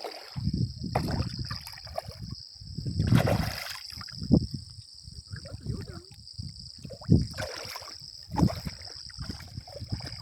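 Water sloshing and splashing with irregular knocks, the loudest about three, four, seven and eight and a half seconds in, over a steady high-pitched buzz.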